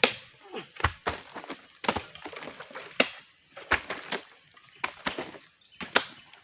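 Irregular knocks and thuds, roughly one or two a second, with quiet gaps between them.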